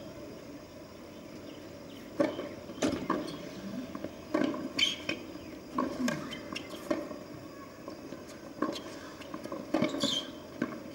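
A tennis rally on a hard court: the serve is struck about two seconds in, then sharp, irregular racket-on-ball hits and ball bounces come every second or so.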